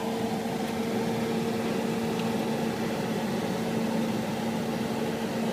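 Kitchen range hood exhaust fan running on its high setting: a steady rush of air with a constant low hum.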